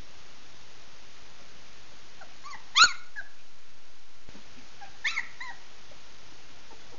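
Samoyed puppies yipping while they play: a few faint squeaks, then one loud, high yelp about three seconds in, and two short yips around five seconds in, over a steady hiss.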